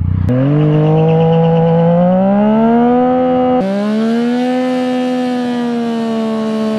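Yamaha FZ-09's inline three-cylinder engine held at high revs during a burnout on a worn rear tire, its pitch slowly rising and falling, with a sudden jump in the sound about three and a half seconds in.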